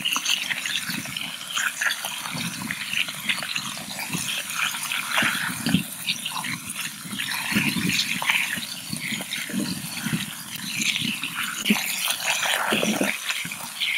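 Thin strips of beef frying in rendered beef fat in a wide steel pan over an open wood fire: a steady sizzle with many small crackles and pops.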